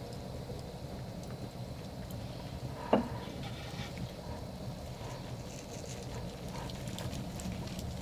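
One sharp knock about three seconds in, then faint pattering of coarse salt sprinkled over raw pretzel dough, over a steady low rumble with scattered small clicks.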